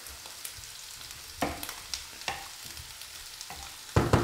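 Wooden spoon stirring a stainless steel pot of peppers in coconut milk, with scattered scrapes and taps against the pot over a light sizzling hiss; a louder run of knocks comes at the very end.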